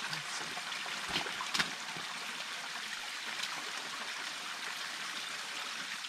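Creek water running and pouring out of a culvert in a steady rush, with a couple of light knocks about a second and a half in.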